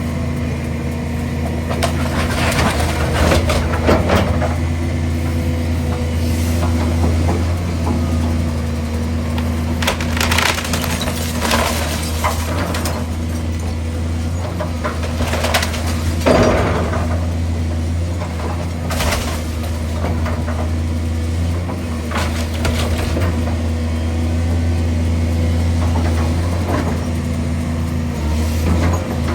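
A demolition machine's engine runs steadily while wood cracks, splinters and crunches in repeated bursts as a fire-damaged house is pulled down.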